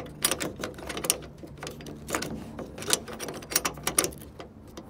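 Metal bull ring tie-down bracket clicking and knocking against the plastic bed-rail slot as it is wiggled while jammed in the stake pocket. With its screws backed out it tilts and catches. Irregular sharp clicks, several a second.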